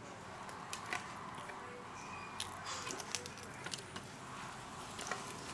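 Hands handling and turning over a graphics card: a scatter of small clicks and taps from fingers on the card, thickest around the middle.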